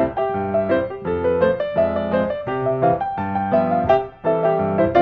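Background piano music: a tune of many short notes, several sounding together.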